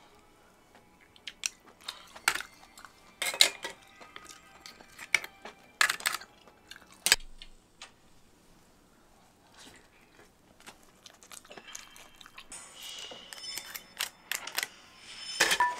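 Wooden chopsticks clinking and scraping against scallop shells and the pot in a string of sharp, irregular clicks, with quieter gaps of eating in between.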